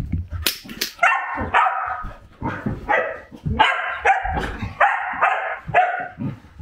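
Female Samoyed vocalizing in overexcitement: a run of about nine short, high, grumbling barks and cries that sound almost angry, her joy at greeting her owner.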